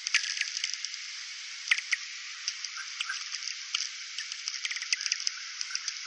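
Space radio-wave recording played as sound: a steady hiss full of sharp clicks, crackles and short chirps, a few louder, that resembles a rainforest's insect and bird chorus.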